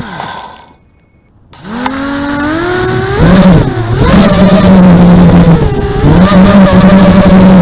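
Hobbyking Flip 230 quadcopter's brushless motors and propellers, heard from its onboard camera: the motors spin down to a stop as the quad sits in the grass, then after about half a second start again with a rising whine as it takes off. The pitch dips and climbs twice with throttle changes, then holds at a steady high whine.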